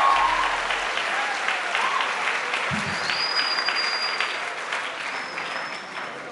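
Audience applauding, the clapping slowly dying down. A thin high steady tone sounds for about a second, about three seconds in, and again more briefly near the end.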